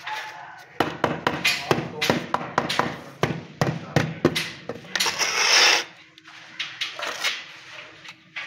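Rubber mallet tapping porcelain floor tiles to bed them into the mortar, a quick run of dull knocks several times a second. About five seconds in there is a loud, harsh scrape under a second long, then only a few soft knocks.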